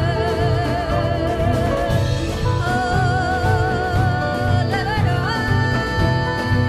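Live band playing a Kurdish folk song: a woman singing with wide vibrato over a steady drum beat, with trumpet and clarinet. A long steady held note comes in about halfway through.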